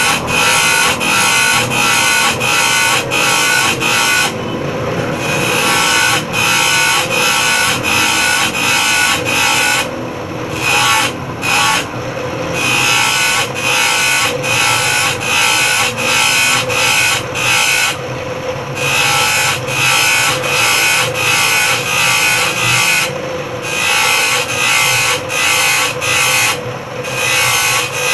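Bench grinder running while a steel saw blade is pressed against the wheel in short strokes, about two a second, grinding the saw teeth. The grinding breaks off briefly a few times as the blade is shifted, while the motor keeps running.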